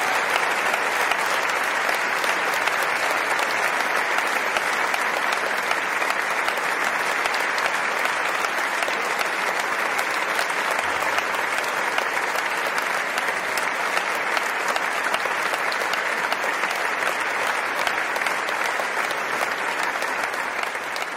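Concert audience applauding, a steady, dense clapping.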